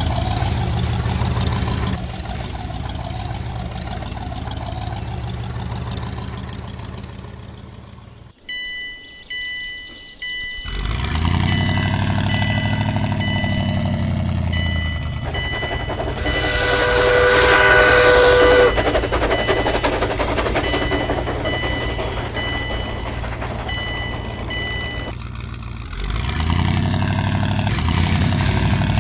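Dubbed vehicle engine sound running, cutting out for about two seconds partway through, then swelling up again. Under it, a railway-crossing warning signal sounds in even repeated beeps, and a loud horn blast sounds for about two seconds a little past the middle.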